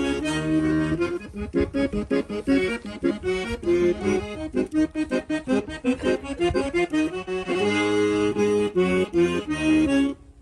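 Accordion-led traditional folk music with no singing: a fast run of short notes, then sustained held chords, ending abruptly as the song finishes.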